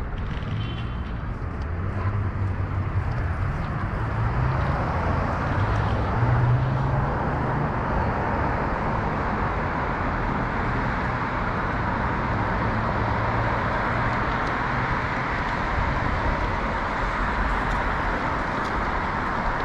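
Steady road traffic noise from passing vehicles, with an engine's low hum swelling to its strongest about six seconds in and then fading.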